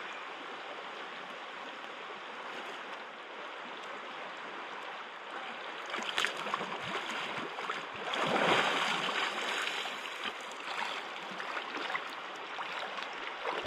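Creek water running steadily close to the microphone. From about six seconds in, a person crouching and dunking in the creek adds irregular splashing, loudest around eight to ten seconds.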